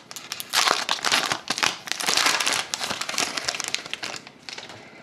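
A trading-card pack's wrapper being torn open and crinkled, a dense run of crackling that tails off about four seconds in.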